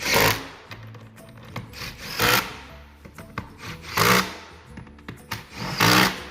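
Four short bursts, about two seconds apart, of a tool running a 9/16 socket onto the chair's bolts, driving them tight one after another.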